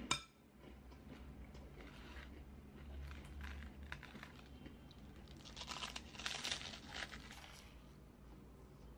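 A sharp click just at the start, then crackling and crunching as a toasted-bread egg sandwich is handled and torn, loudest about six to seven seconds in.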